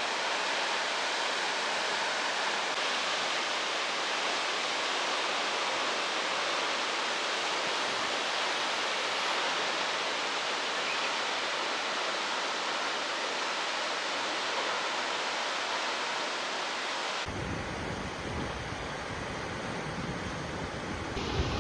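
A waterfall's falling water making a steady, even rush. About 17 s in the sound changes abruptly to wind buffeting the microphone with low rumbles.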